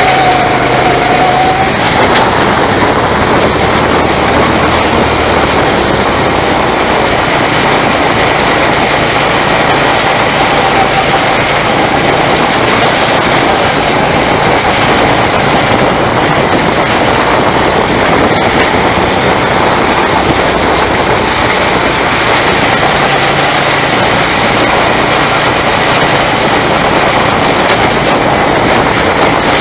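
Go-kart engine running continuously as the kart is driven around the track, with a steady whine whose pitch wavers slightly with speed, over a constant rush of road and wind noise.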